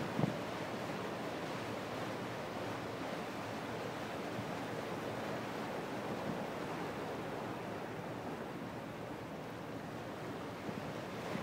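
Steady rush of wind and water on the deck of a harbour ferry under way, with wind buffeting the microphone; brief low bumps of wind on the microphone at the start and again at the end.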